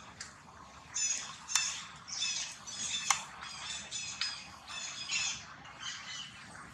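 Newborn macaque giving a rapid string of short, high-pitched squealing cries, about two a second, typical infant distress calls, with a couple of sharp snaps or clicks among them.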